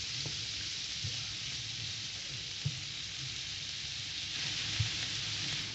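Prawns sizzling in olive oil with onion, chili and garlic in a frying pan, a steady hiss, with a few soft knocks about once every second or two.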